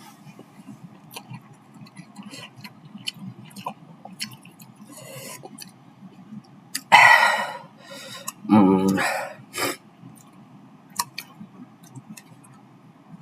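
Noodles being chewed and slurped, with many small wet clicks of eating. About seven seconds in there is a loud, noisy sound lasting about a second, followed by a short hummed "mm".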